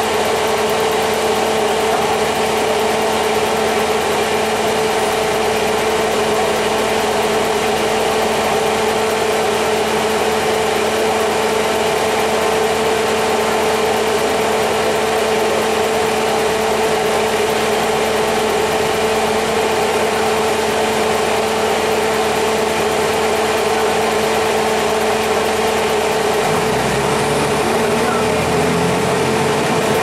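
Cummins ISC diesel engine of a 2002 Blue Bird CS transit bus running steadily with a constant whine. About 27 seconds in, a deeper engine note starts climbing in pitch in steps as the engine revs up.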